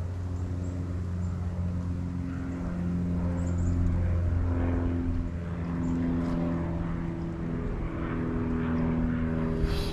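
Propeller airplane droning, a steady hum whose pitch shifts slightly, louder around the middle. A brief click near the end.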